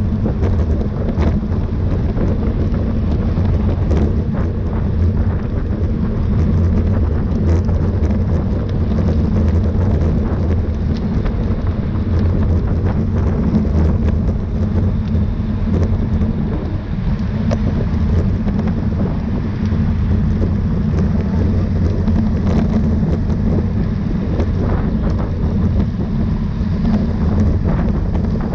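Wind buffeting the microphone of a camera on a bicycle racing at speed: a steady, loud low rumble.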